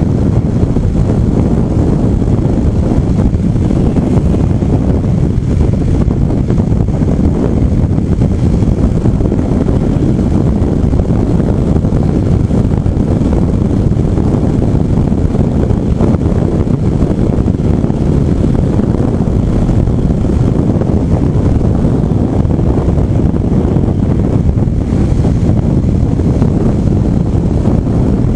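Steady low wind rumble on the microphone while riding a Rusi SSV200 motorcycle at road speed, with the bike's engine and road noise mixed in underneath.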